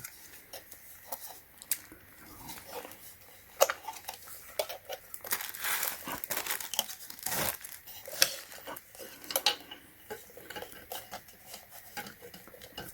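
Hard plastic parts of a submersible pond pump being handled: irregular small clicks, knocks and rustles as its handle is fitted into a different slot on the housing.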